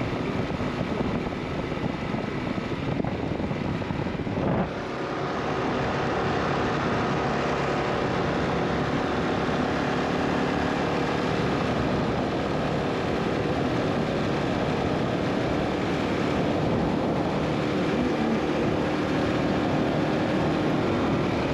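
Kawasaki KLR650's single-cylinder engine running steadily under way, with wind noise. There is a short dip in level about four and a half seconds in.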